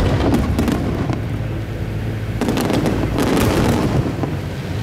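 Aerial firework shells bursting in two volleys of rapid bangs and crackles, one at the start and another about two and a half seconds in.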